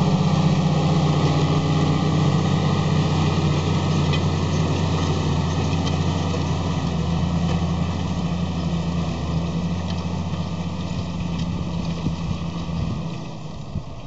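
New Holland TM155 tractor's diesel engine running steadily under load as it pulls a five-furrow plough, fading gradually as the tractor moves away.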